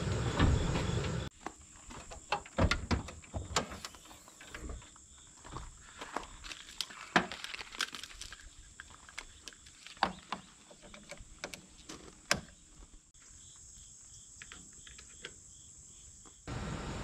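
Scattered light clicks and knocks of jumper-cable clamps and cables being handled, over a faint steady high insect drone. The first second holds louder metal clanking.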